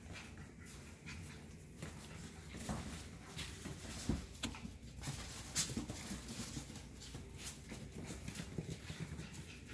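Cockapoo puppies playing together on a tile floor: scattered clicks and scuffs of paws on the tiles, with a few short puppy sounds.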